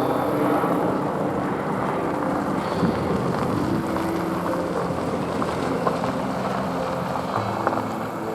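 Airbus A330-200 airliner's jet engines at takeoff power: a steady, loud rushing noise with a low hum underneath.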